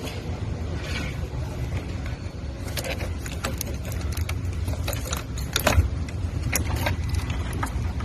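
Irregular sharp metallic clicks and clinks of tools and parts being handled, over a steady low rumble.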